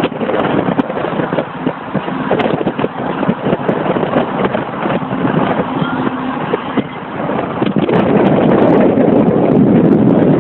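Road and wind noise from a moving car, with air rushing over the microphone, growing louder and steadier about eight seconds in.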